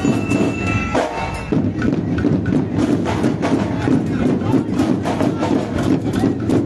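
A marching band playing, its drums and percussion beating a steady, fast rhythm; a held melody line sounds only at the start and drops out about a second and a half in.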